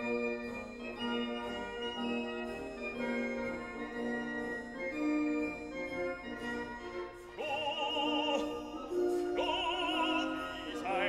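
Classical background music: sustained keyboard chords, joined about seven seconds in by an operatic singing voice with a wide vibrato.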